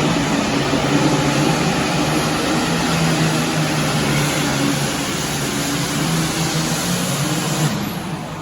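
Super Farm class pulling tractor's diesel engine running at full power on a pull, a loud steady engine note over a broad rushing noise; it eases off toward the end.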